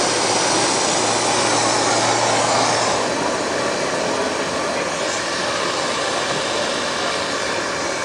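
Steady rushing noise, with a low hum that stops about three seconds in, after which the noise eases slightly.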